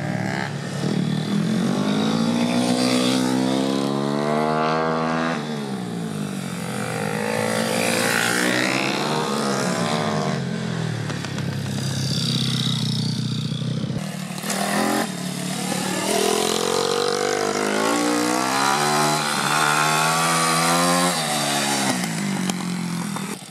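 Small single-cylinder four-stroke pit bike engines revving up and dropping back over and over as the bikes accelerate and slow. There is an abrupt cut about 14 seconds in.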